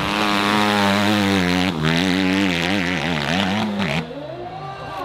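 Dirt bike engine revving hard, its pitch wavering up and down rapidly as the throttle is worked. About four seconds in it drops to a quieter engine note that falls in pitch.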